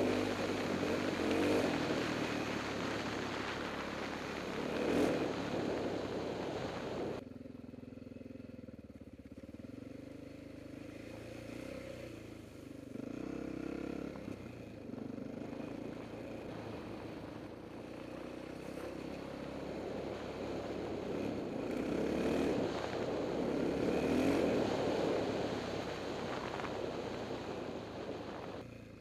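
A 2000 Honda XR650R's single-cylinder four-stroke engine pulling the bike along a gravel road. The engine note rises and falls at first, drops to a quieter, lower note from about seven seconds in, then climbs again around twenty seconds in before easing off near the end.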